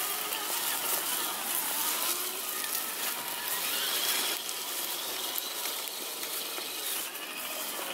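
Radio-controlled scale crawler trucks (Axial SCX10 and Traxxas TRX4) driving over a trail of dry leaves: a steady crackling rustle of leaves under the tyres, with a faint high whine of the drivetrain coming in about halfway through.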